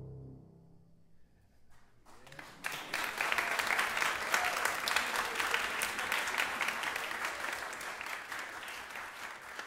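The ensemble's last held chord dies away in the first half second, then audience applause breaks out about two seconds in, swells quickly and carries on as dense, steady clapping.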